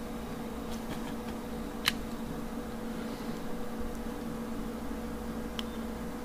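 Steady low electrical or fan-like hum with two even tones, with one sharp click about two seconds in and a fainter tick near the end.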